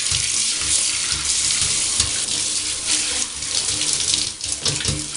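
Handheld shower running into a bathtub: a steady rush and hiss of spraying water, with a few dull knocks.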